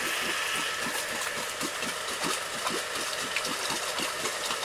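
Off-road vehicle's engine running at idle, with a steady hiss and an uneven low pulsing about three times a second.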